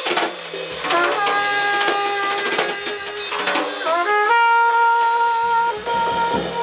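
Music: a slow melody of long held notes, sliding up into new notes about a second in and again near four seconds, over low bass notes.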